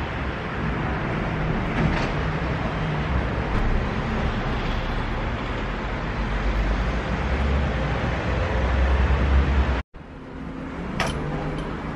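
Steady outdoor background noise with a heavy low rumble that grows a little louder, then cuts off abruptly just before ten seconds in. A quieter background follows, with a few light clicks.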